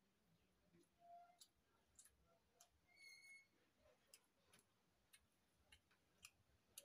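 Near silence: quiet room tone with faint ticks about twice a second and one brief high chirp about three seconds in.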